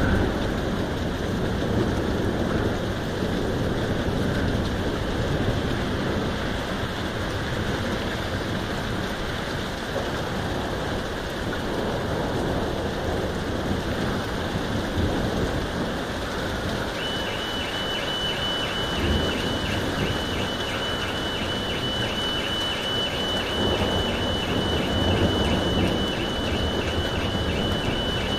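Heavy rain falling with a steady hiss. From about two-thirds of the way in, a car alarm sounds: a high electronic tone pulsing rapidly and evenly.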